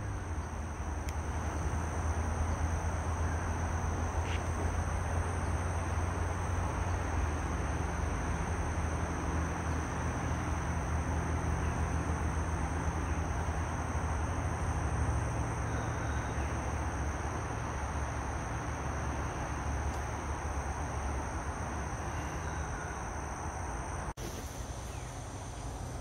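Steady chorus of insects, a continuous high-pitched drone, over a low fluttering rumble and hiss on the microphone.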